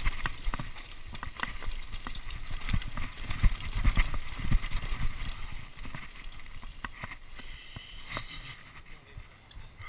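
Mountain bike rolling fast down a rocky dirt track: tyres crunching over loose stones, with the frame and chain rattling and knocking, over a low wind rumble. The rattling thins out and quietens near the end as the bike slows to a stop.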